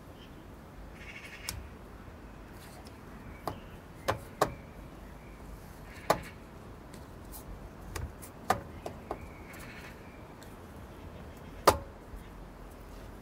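Sharp plastic clicks and knocks, about ten scattered unevenly with a few in quick succession, as a plastic electrical wiring connector in the engine bay is handled and worked by hand; the loudest click comes near the end.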